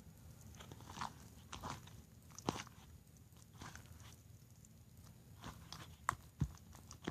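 Homemade slime being squeezed and kneaded by hand, giving scattered faint squelches and sticky clicks, a few sharper ones about two and a half seconds in and again near the end.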